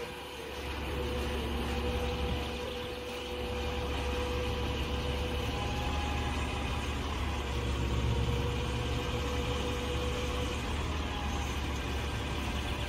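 A large engine running steadily at idle, a deep rumble with a faint steady whine above it; it grows a little louder about a second in.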